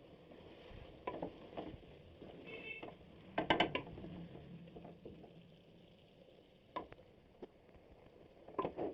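Kitchen utensils and cookware clinking and scraping: scattered knocks, with a cluster of clatter about three and a half seconds in and another near the end.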